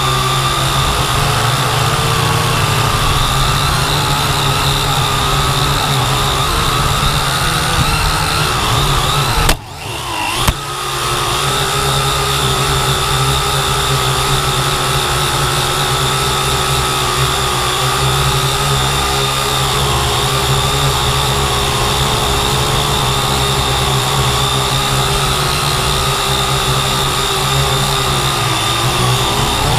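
Quadcopter drone's electric motors and propellers whining steadily, heard close up from the drone's own camera. About ten seconds in the sound drops away sharply for about a second, then picks back up.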